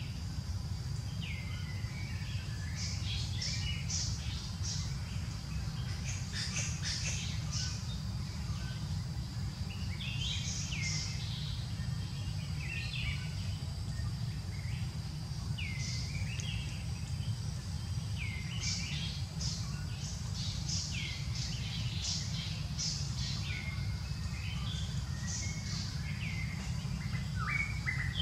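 Birds calling in the forest: clusters of short high chirps and hooked, swooping calls that recur every few seconds, over a steady low rumble.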